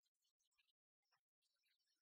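Near silence: the sound track is almost empty, with only faint scattered traces.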